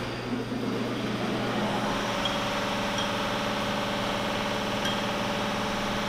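A shop machine's motor starts and runs steadily with a hum, rising in pitch over the first couple of seconds before settling.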